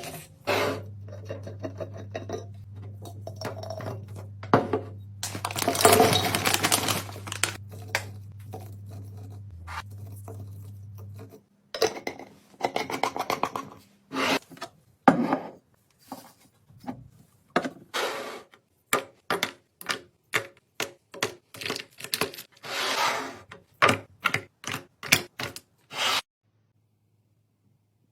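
Hands restocking a fridge: plastic containers, lids and bottles knocked, rubbed and clicked into place, many short separate clicks and knocks. A steady low hum and a longer rustle run through the first part, and the handling stops near the end.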